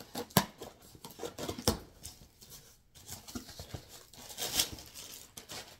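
Packaging being handled while unpacking a shipping box: scattered sharp ticks and short rustles, with a longer rustle about four and a half seconds in.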